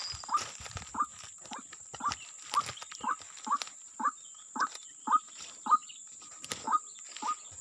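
White-breasted waterhen calling: a repeated series of short rising notes at about two a second, with a brief gap near the end.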